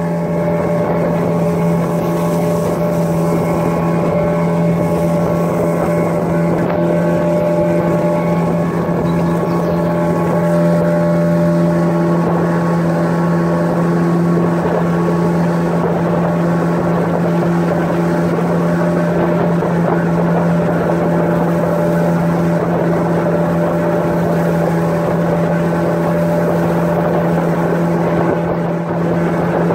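Outboard motor of a small open boat running steadily under way, a constant-pitched drone that holds the same speed throughout.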